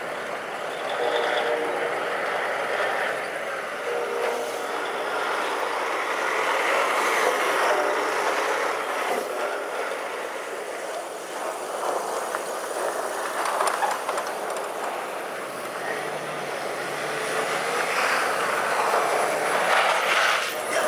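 Heavy trucks and a front-end loader running on a snow-covered city street, with cars passing; a steady traffic din that swells and fades as vehicles go by.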